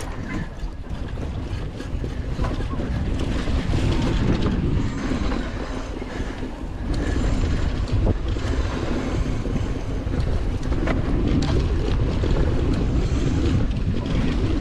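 Wind rushing over the microphone of a mountain bike being ridden fast down a dirt slalom course: a steady low rumbling rush with a few sharp knocks from the bike. It grows louder over the first four seconds.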